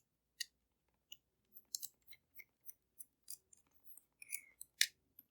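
Small precision screwdriver working a tiny screw out of the plastic hinge of a pair of Bose QC-15 headphones: a string of faint, sharp, irregular clicks, about three a second.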